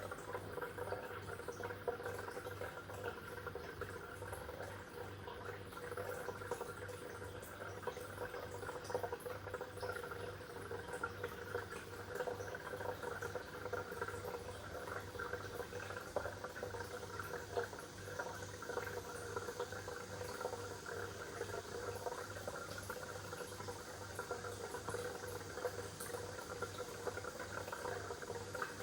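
Water bubbling steadily in a fish tank, with a low hum underneath.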